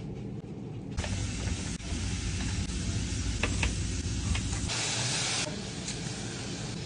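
Food sizzling in a hot pan, starting about a second in, with a few light clicks of a utensil and a louder stretch of hissing about five seconds in.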